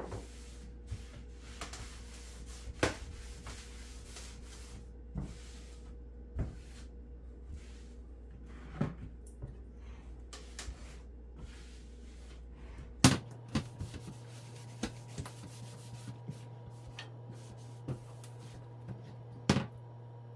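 Wooden kitchen cabinet doors knocking and clicking as they are opened, shut and wiped with a cloth. The knocks are scattered and light, with the loudest about two-thirds of the way in and another near the end, over a steady low hum.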